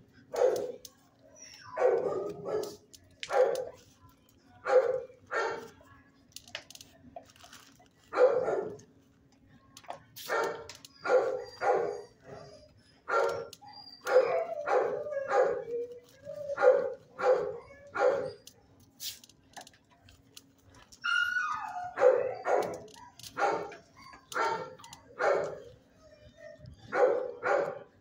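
Dog barking over and over in runs of short barks, with a break of a few seconds about two-thirds of the way through.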